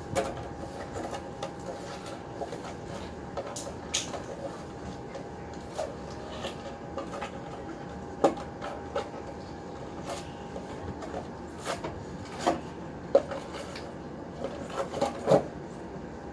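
Slime being squeezed and kneaded by hand: scattered clicks and pops at irregular intervals, over a faint steady hum.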